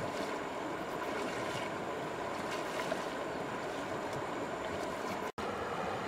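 Steady rush of a shallow river's flowing water, with faint splashing from wading. The sound cuts out for an instant about five seconds in.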